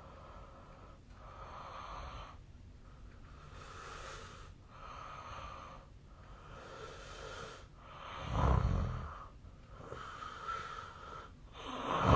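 A sleeping man snoring: slow, hissing breaths, then two loud, deep snores, about eight seconds in and again near the end.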